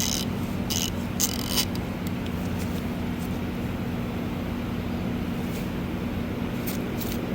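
Long 3/8-inch-drive Icon ratchet being swung back and forth, three short bursts of pawl clicking in the first second and a half. A steady low hum runs underneath, with two faint clicks near the end.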